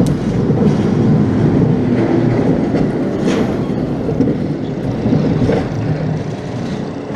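Wild-mouse roller coaster car running along its steel track, a steady loud rumbling rattle heard from inside the car.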